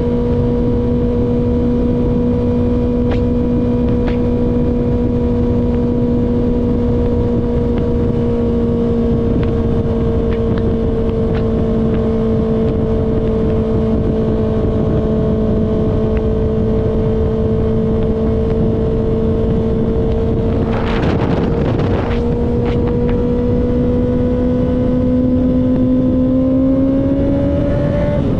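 Kawasaki ZX6R inline-four engine pulling steadily at constant high revs while cruising, with wind rushing past the rider. About two-thirds of the way in there is a brief rush of noise, then the revs climb gradually and fall away sharply at the very end.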